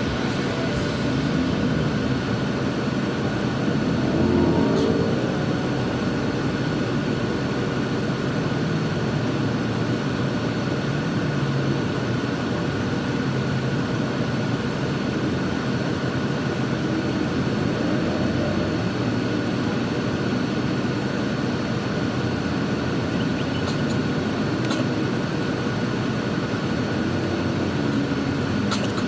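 Steady drone of an express bus heard from inside the cabin: engine and running noise, with a brief rise in the engine note about four seconds in.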